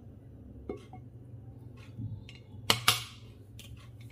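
A clear plastic food-storage container is set down over its plastic base with a soft knock. A couple of seconds in, two sharp snaps come close together as the container's locking tabs are clipped shut.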